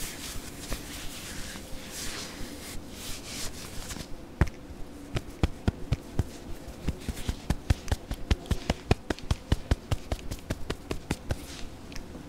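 Satin-gloved fingertips rubbing softly over a camera lens, then from about four seconds in tapping on it with many quick, irregular taps, several a second and sometimes in pairs.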